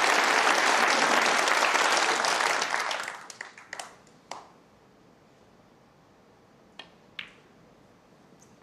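Snooker arena audience applauding, the clapping dying away after about three seconds with a few last scattered claps. Then a quiet hall, broken by two sharp clicks about half a second apart.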